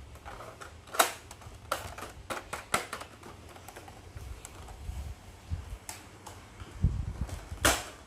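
Sharp plastic clicks and clacks from a toy Nerf blaster being handled and loaded, about half a dozen separate clicks, the loudest about a second in and near the end, with a few soft handling thumps.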